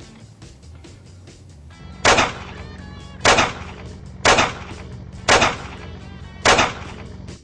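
Five gunshots about a second apart, the first about two seconds in, over quiet background music.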